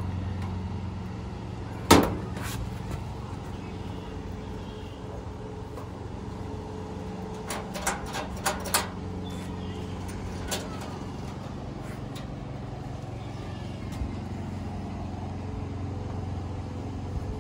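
Small metal clicks and taps from a screwdriver and hinge hardware being worked on a sheet-steel grill cabinet door: one sharp click about two seconds in, a quick cluster of clicks around the middle, and a couple of lighter ticks later. Under it runs a steady low mechanical hum.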